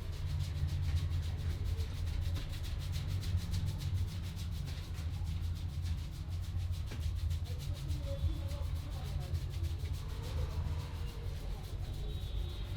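Hands rubbing briskly over a person's scalp and hair in a head massage: a rapid, even run of rubbing strokes over a steady low rumble.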